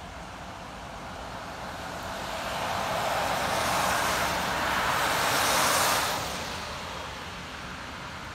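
An SUV passing on a wet road, its tyres hissing through the standing water; the hiss swells from about two seconds in, peaks around four to six seconds, then fades away.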